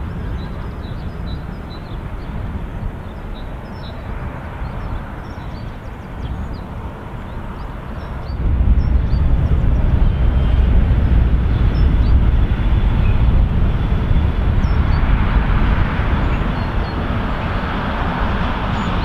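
Freight train hauled by an electric locomotive approaching: a low rumble that steps up sharply about eight seconds in and grows fuller as the train nears. Faint high chirps in the first half.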